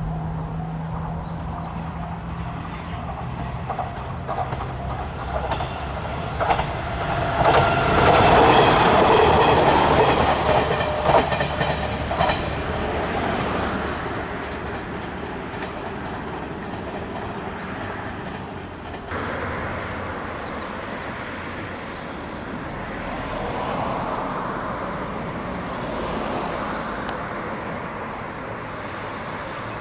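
A KiHa 66/67 diesel railcar set runs past close by: its diesel engine hums and its wheels clack over the rail joints, loudest about eight to twelve seconds in. The sound changes abruptly about nineteen seconds in, and the train is then heard farther off.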